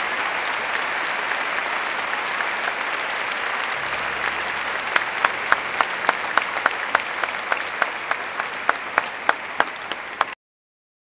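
A large arena crowd applauding. From about five seconds in, sharp claps close by stand out at about three a second over the crowd. The sound cuts off abruptly near the end.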